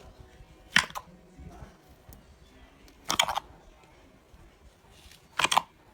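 Slime crackling in three short bursts of clicks as it is pressed, about two and a half seconds apart.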